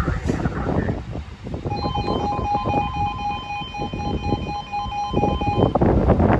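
Level crossing warning alarm sounding a rapidly pulsing two-tone electronic warble, starting a couple of seconds in and cutting off near the end. It plays over the low rumble of a departing freight train of oil tank wagons.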